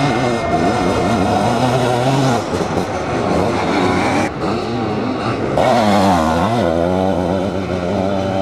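Sidecar motocross outfits' engines revving hard, their pitch climbing and dropping as the throttle opens and closes, with several machines heard at once. The sound changes abruptly twice midway.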